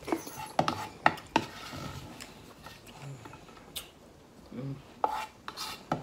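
Spoons knocking and scraping against soup bowls while two people eat, in scattered sharp clicks, several quick ones in the first second and a half and another cluster near the end.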